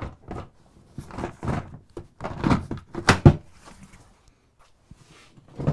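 Hard plastic Milwaukee Packout toolboxes being set down and stacked onto the rolling tool chest: a run of plastic clunks, knocks and scuffs, the loudest a little after three seconds in. After a quieter spell there is one more knock right at the end.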